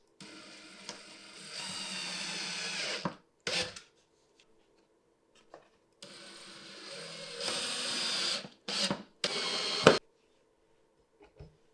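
Cordless drill/driver driving screws into wood. It makes two runs of about three seconds each, then a few short bursts, the last ending in a sharp knock.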